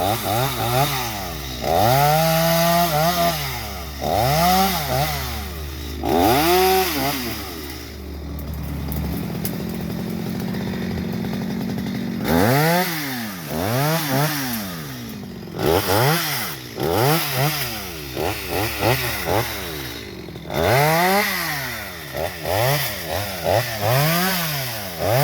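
Chainsaw engine revving up and down over and over, its pitch rising and falling with each burst of throttle. It settles to a lower, steadier running for a few seconds about a third of the way in.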